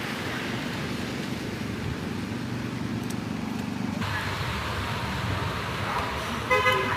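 Rainy city traffic: a steady wash of road and rain noise with a vehicle's low rumble, which changes character about four seconds in. A short pitched sound comes near the end.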